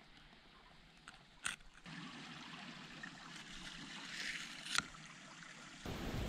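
Faint steady rush of a stream running in the background, with two sharp clicks about a second and a half and nearly five seconds in. A louder low rumble sets in near the end.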